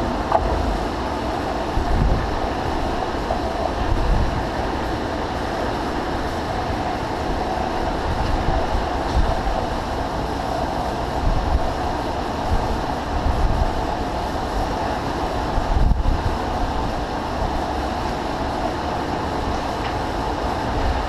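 American Pacemaker 20x192 engine lathe running under a cut, its tool parting into the joint to take the blind end off a large telescopic hydraulic cylinder: a steady rumble with the grind of the cut.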